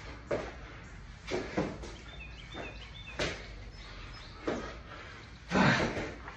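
A man doing burpees: a thud or hard breath every second or so as he drops to the floor and jumps up, the loudest near the end. A bird chirps faintly in the middle.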